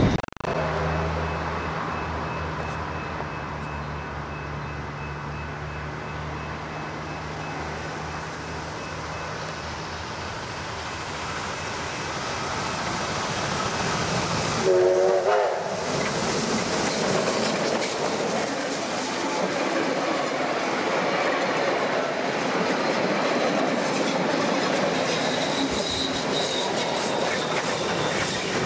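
Victorian Railways K-class 2-8-0 steam locomotive approaching under steam. It gives one short whistle blast about halfway through, then the sound grows into the rumble and clatter of the engine and carriages passing close by.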